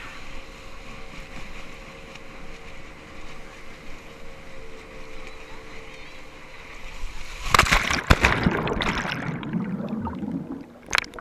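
Water and wind rushing past a rider towed behind a motorboat, with a faint steady engine hum. About seven and a half seconds in, loud splashing lasts a couple of seconds.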